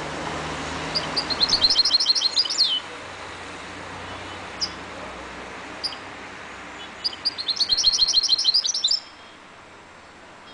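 Caged goldfinch × canary mule singing: two bursts of fast, repeated high notes, one about a second in and a longer one past the middle, with a couple of single chirps between them.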